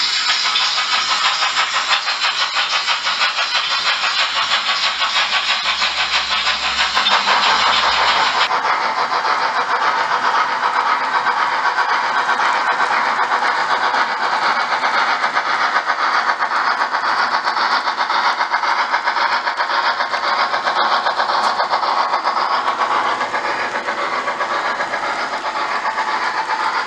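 Märklin model trains running around the layout: a steady, fast, even rattle of wheels and motors on the track. The highest part of the sound drops away about eight seconds in.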